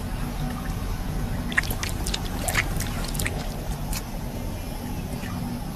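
Water splashing and dripping at the surface, several small sharp splashes in the middle, over a steady low rumble.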